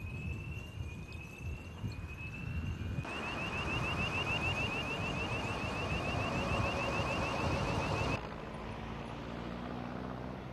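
Electronic siren over vehicle engine noise. It gives slow rising sweeps for about three seconds, then switches to a fast yelp of about six rising chirps a second, and cuts off about eight seconds in. After that only a steady low engine hum remains.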